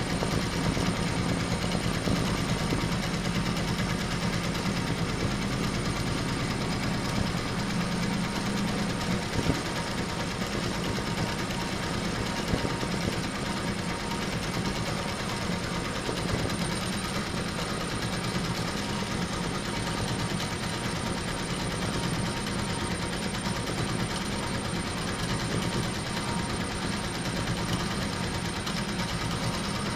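HSW 12-needle high-speed embroidery machine running steadily while stitching.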